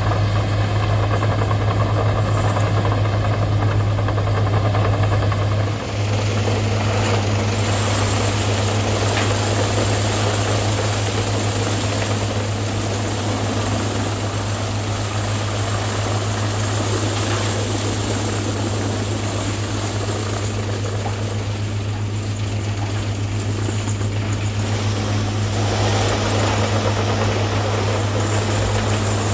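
Whole-tree chipper's diesel engine running hard with a steady deep hum while whole trees are fed into it and chipped, adding a dense noisy grinding over the hum. The sound changes abruptly about six seconds in.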